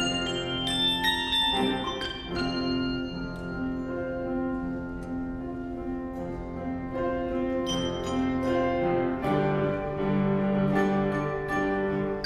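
Instrumental music: struck, ringing notes sounding over held chords, with no singing.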